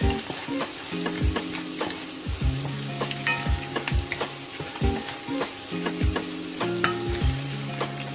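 Vegetables and meat sizzling as they are stir-fried in a wok over high heat. A wooden spatula scrapes and knocks against the pan at irregular intervals, about once or twice a second.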